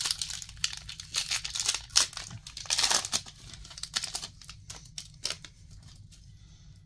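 Foil booster-pack wrappers crinkling and rustling in the hands as the packs are torn open, in quick irregular bursts that are loudest around two to three seconds in and thin out near the end.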